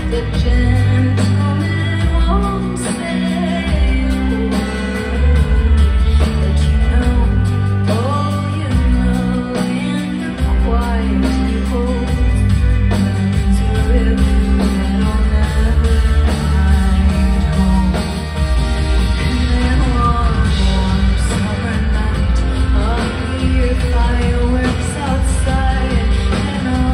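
A live band playing under a woman's sung lead vocal, with a heavy, sustained low bass.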